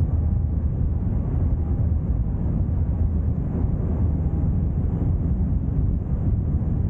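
Wind rushing over the microphone on the bow of a moving sightseeing ship, with a steady low rumble underneath.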